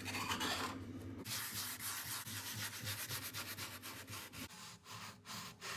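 Salt being scrubbed around the inside of a rusty cast iron pan: a gritty rubbing in quick, regular back-and-forth strokes, about four a second, after a brief steady hiss at the start.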